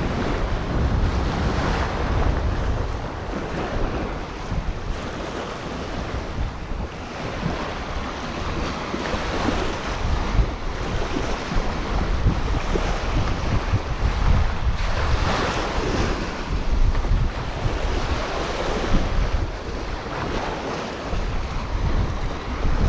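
Strong wind buffeting the microphone over rough surf washing onto a sandy shore, the rumble of the wind steady and the wash swelling now and then.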